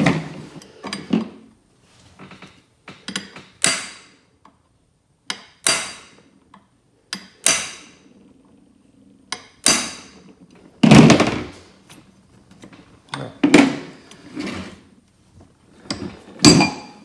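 Hammer striking a steel punch to drive the rocker-arm pivot pin through a Ford flathead fuel pump housing. There are about ten sharp metallic blows, one to two seconds apart, each with a short ring. The pin is a very tight fit.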